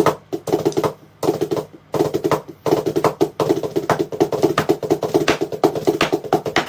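Drumsticks playing fast strokes and rolls on a Donner DTB-1S silicone practice pad resting on the player's lap, with brief pauses about one and two seconds in.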